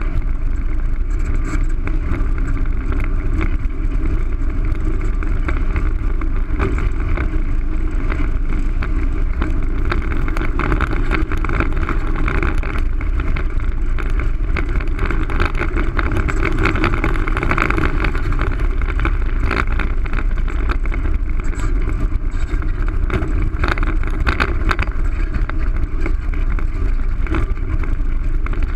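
Longboard wheels rolling fast on asphalt: a loud, steady roar with wind buffeting the microphone.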